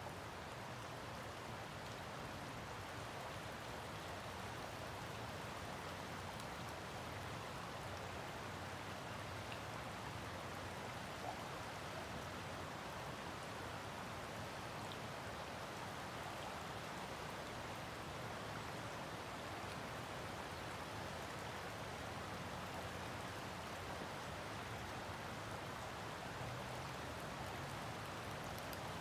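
Steady, even outdoor background hiss, with no distinct events.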